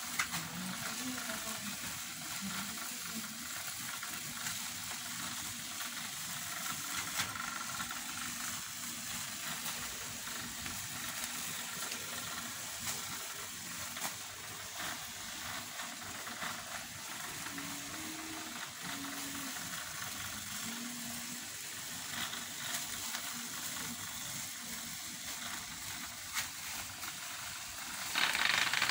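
Thin black plastic bag crinkling and rustling as a kitten bites, paws and drags it, with scattered crackles. The rustle gets louder just before the end.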